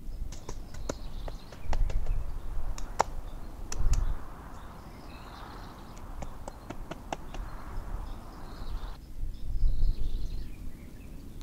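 Dry wooden sticks clacking and knocking against each other as they are fitted into a stick frame: a run of sharp knocks over the first seven seconds or so. A few dull low bumps and faint bird chirps are mixed in.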